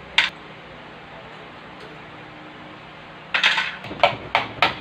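Metal hammer knocking at the handwheel of a Singer 974 sewing machine: a clatter, then three sharp blows about a third of a second apart near the end. A single sharp click comes just after the start.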